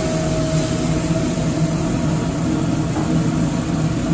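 Steady low drone of a commercial kitchen: the gas range's open burners and ventilation running, with a constant hum and no distinct events.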